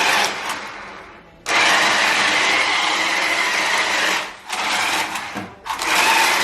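Small electric motor of a toy RC drift car whining in bursts as the throttle is worked: a long burst from about a second and a half in, two short breaks, and it picks up again near the end.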